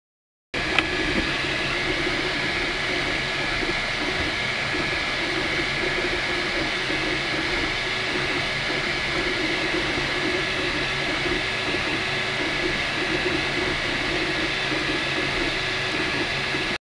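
MakerBot 3D printer running at normal speed: a steady whir with a thin constant whine, and a lower hum that wavers rapidly as the stepper motors drive the extruder, with one click at the start.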